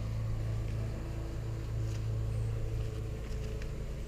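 A steady low mechanical hum, like a motor running nearby, with a few faint clicks and taps over it.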